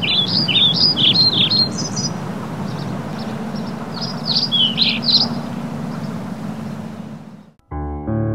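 Birds chirping in quick, varied calls in two bouts, over a steady low rumble. The ambience fades out near the end and piano music begins.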